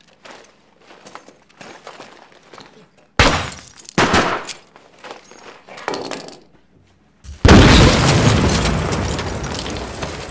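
Soft footsteps, then two sharp bangs about three and four seconds in, then a loud blast with breaking and clattering about seven and a half seconds in that dies away slowly.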